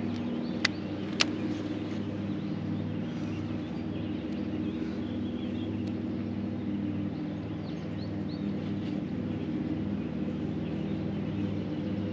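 A motor hums steadily at an even pitch, with two sharp clicks about half a second apart near the start.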